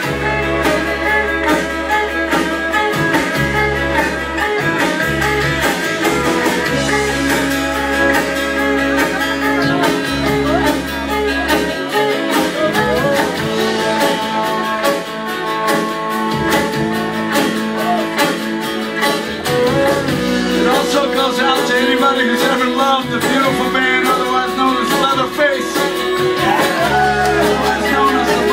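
Live band playing guitars with a singing voice, heard from within the crowd of a club.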